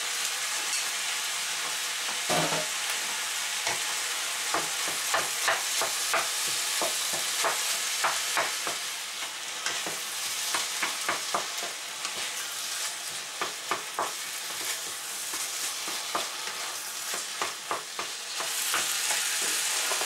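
Rice, minced chicken and vegetables sizzling in a frying pan while a wooden spatula stirs and turns them, with frequent clicks and taps of the spatula against the pan. A single duller knock comes about two seconds in.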